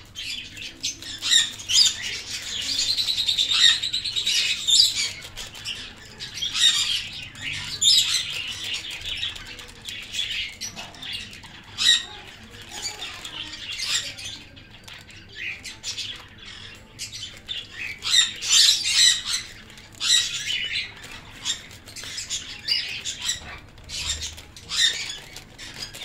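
A flock of caged pet birds chirping and squawking in many short, high-pitched bursts. The calls are loudest a few seconds in and again a little past halfway.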